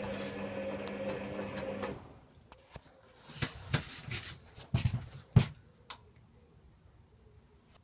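Servis Quartz 6033 washing machine's drum motor running with a steady hum during the wash tumble, then stopping about two seconds in for the pause between tumbles. In the pause come a few sharp clicks and knocks, the loudest about five seconds in.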